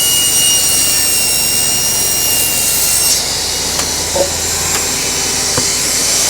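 Electric table saw running loud with a steady high whine, its blade cutting through a wooden shelf board; the high tones change about three seconds in.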